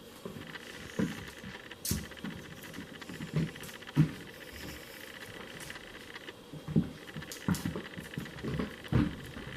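A pet scampering and pouncing at a feather toy, its paws making irregular soft thumps and scuffles about every half second to a second.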